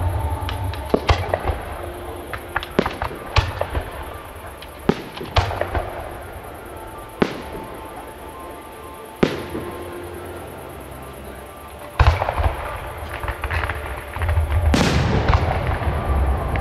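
Fireworks bursting overhead: a string of sharp bangs, thinning out in the middle and building to a louder, denser volley near the end, with music playing underneath.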